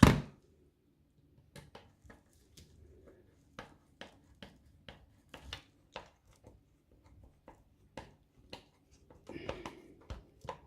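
Small screws being driven into a multimeter's plastic case with a screwdriver: one sharp click at the start, then irregular faint ticks and clicks of the driver and the case being handled.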